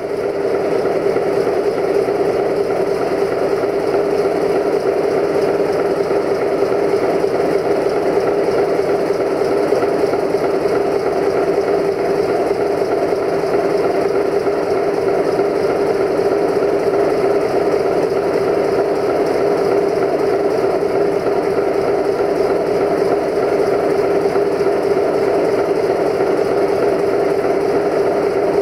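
Diesel locomotive idling steadily, a constant engine hum with a prominent steady whine over it.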